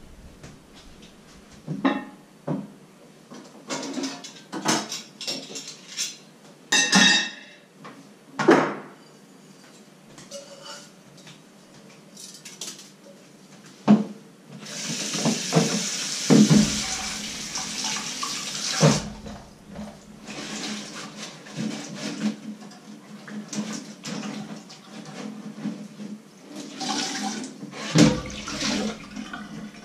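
Kitchen tap running into a stainless steel sink while metal pots and pans knock and clink against the steel as a pot is rinsed. Separate clanks come first, then the tap gushes for about four seconds midway, followed by more clattering and splashing.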